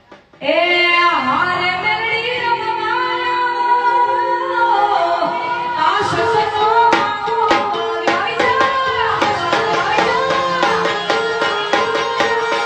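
A woman sings a devotional folk song into a microphone, entering about half a second in with a long, ornamented held note. From about six seconds in, drum strokes and a steady held instrumental note accompany her.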